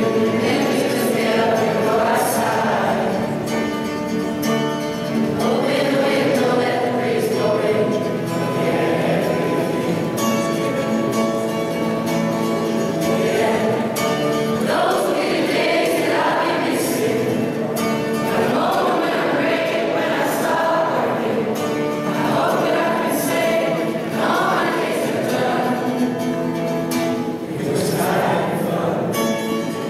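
Mixed school choir of girls' and boys' voices singing a graduation song, holding long notes, with instrumental accompaniment.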